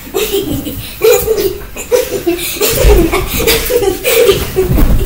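Girls laughing hard and continuously while playing rough on a bed, with a couple of dull low thumps, about three seconds in and near the end, of bodies landing on the mattress.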